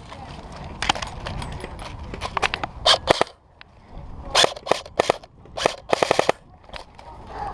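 Airsoft guns firing, a mix of single shots and short rapid bursts with the sharp crack of BBs leaving the barrel; the fastest burst comes about six seconds in.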